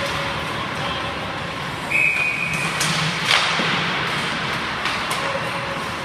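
Ice hockey practice: skates scraping the ice and sticks cracking against pucks, with a sharp shot about three seconds in. A brief high whistle sounds about two seconds in.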